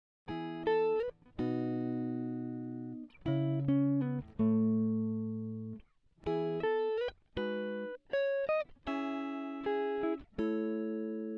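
Background music: a solo plucked guitar melody of single notes and chords that ring out and fade, with small slides between some notes.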